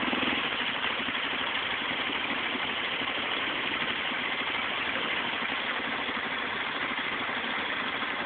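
Honda ATV engine idling steadily.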